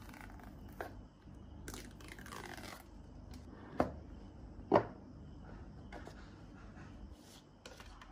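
Cardboard packaging of an AirPods Pro box being unboxed: the paper tear strip rips off the shrink-free box about two seconds in, then two sharp knocks as the box is handled on the wooden tabletop around four and five seconds in, with light paper rustling and clicks near the end.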